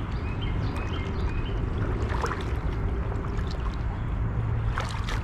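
Creek water sloshing and splashing around the legs of a person wading, a steady watery churn with a couple of stronger splashes.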